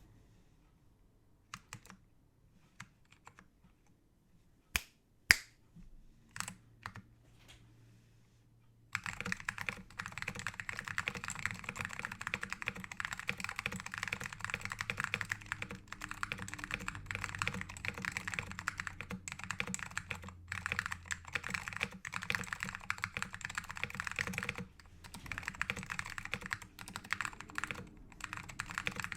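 Kingsaver mechanical keyboard with lubed SKCM Orange Alps switches on a plastic plate and dye-sub PBT keycaps. A few scattered clicks come first, then fast continuous typing starts about nine seconds in, with a brief pause near the 25-second mark.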